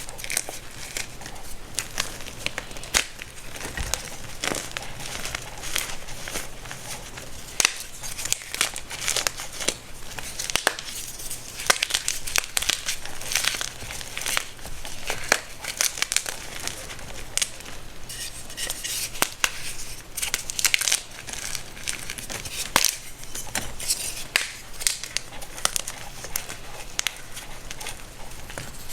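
Homemade baking soda crunching and crumbling: a continuous run of irregular dry crackles with frequent sharper crunches.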